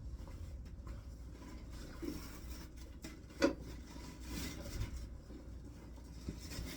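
Handling noise as a costume shirt is worked onto an animatronic figure's frame: cloth rubbing and light scrapes and ticks, with one sharp knock about halfway through.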